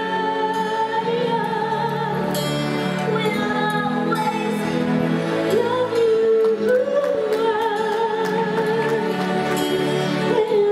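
A woman singing held notes with a wavering vibrato over instrumental backing music.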